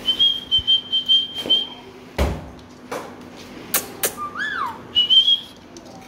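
Alexandrine parakeet whistling: a long steady high whistle, then a short whistle that swoops up and falls back, and a brief high whistle near the end. A knock about two seconds in and a few sharp clicks come between the whistles.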